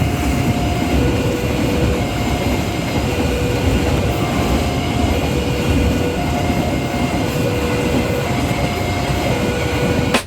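Train running with a steady, dense rumble, while a two-note tone alternates, higher then lower, about once a second.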